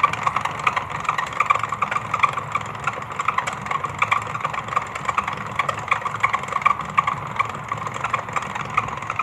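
Opened-up clothes dryer running, a low hum under a fast, uneven clattering of clicks as it turns: the abnormal rotation noise, which seems to come from a slack drive belt and a loose, wobbling central fan.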